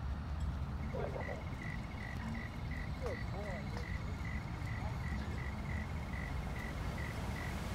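Outdoor ambience: a low rumble of wind and distant noise, with a thin high chirping that pulses about three times a second from about a second in, and a few short bird calls.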